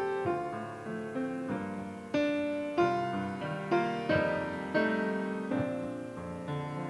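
Solo piano playing a slow, gentle piece: single notes and chords struck every half second to a second, each one fading away after it is struck.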